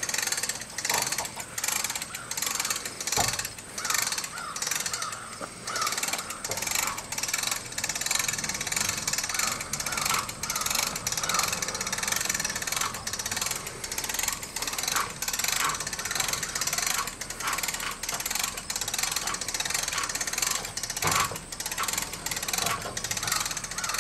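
Hand-cranked boat trailer winch being wound, its ratchet pawl clicking steadily as the strap draws the aluminum boat forward on the trailer.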